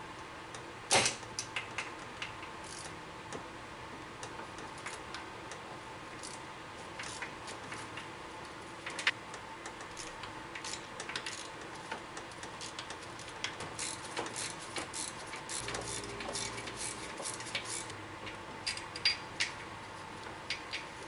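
Scattered light metallic clicks and clinks of hand tools at irregular intervals, with a sharper click about a second in and denser runs of clicking later on.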